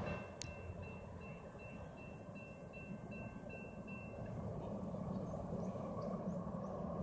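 Railroad grade-crossing warning bell dinging about three times a second, stopping about four seconds in, over a low steady rumble.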